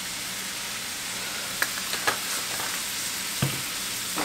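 Thin-sliced steak frying in a skillet over a gas flame, a steady sizzle with a few light clicks and taps.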